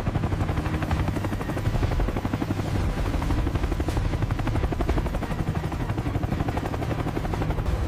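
Helicopter rotors beating rapidly and steadily over a low engine drone.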